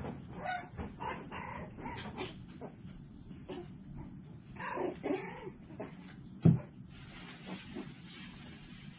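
Seven-week-old tiny toy poodle puppies making short calls on and off as they play, with one sharp knock about six and a half seconds in.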